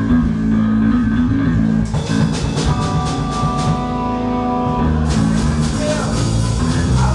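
Live rock band's amplified electric guitar and bass holding droning notes, with drums and cymbal crashes coming in twice.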